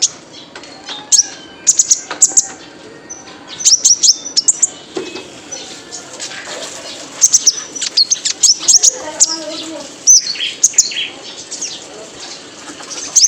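Male kolibri ninja (konin) sunbird singing: clusters of sharp, high, quickly falling chirps and twitters, coming in bursts every second or two.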